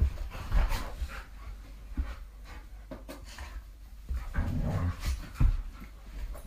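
A dog making irregular short breathy sounds, mixed with low thumps.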